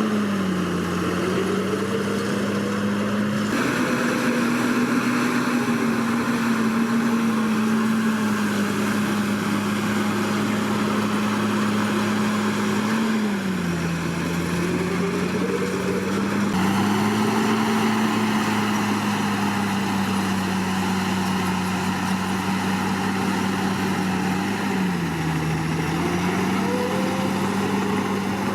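Komatsu D61PX bulldozer's diesel engine running steadily under work. Its pitch dips briefly twice, about halfway through and near the end, and comes back up each time.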